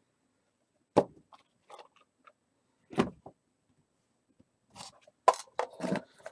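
Handling of a trading card pack and its cards on the box: a single knock about a second in, another about three seconds in, then a quick run of taps and scuffs near the end.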